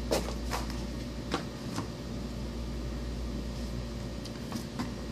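A small product box being opened and a plastic shampoo bottle taken out: a few short clicks and taps of handling, over a steady low hum.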